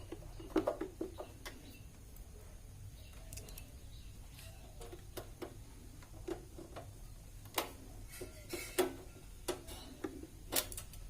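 Light clicks and knocks at irregular intervals, about a dozen, as the parts and wires of a UPS battery backup are handled and fitted back in place.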